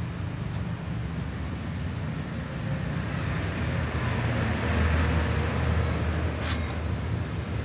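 Steady low rumble of outdoor background noise, swelling a little in the middle, with one sharp click about six and a half seconds in.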